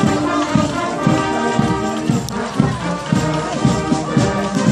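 Brass fanfare band playing a march outdoors, held brass chords over a steady beat of low bass notes.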